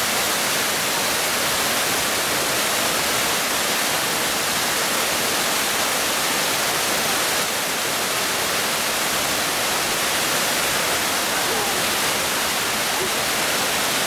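Waterfall pouring and splashing onto rock close by, a steady rushing hiss that never lets up.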